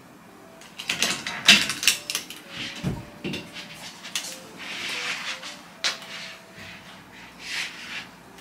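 Interior door being eased open by hand: clicks and knocks from the lever handle and latch, the loudest about a second and a half in, with soft rustling in between as the door swings.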